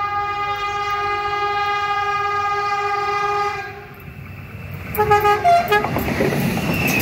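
EFE passenger train sounding its horn: one long steady blast of about three and a half seconds, then a shorter, choppy second blast around five seconds in. Near the end the rumble of the train passing close takes over.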